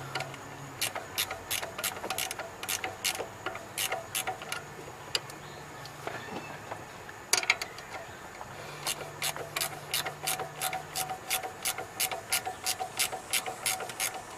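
Hand ratchet clicking in steady runs of about three clicks a second, with a pause in the middle, as the alternator's belt-adjusting bolt is turned to tension the drive belt.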